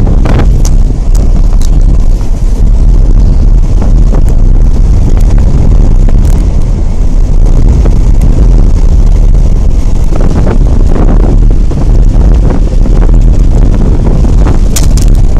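Heavy wind buffeting the microphone: a loud, steady low rumble with a few faint ticks.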